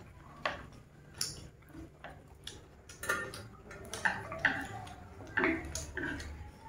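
Eating sounds at close range: chewing on mouthfuls of beef intestine, with chopsticks clicking against wooden bowls several times.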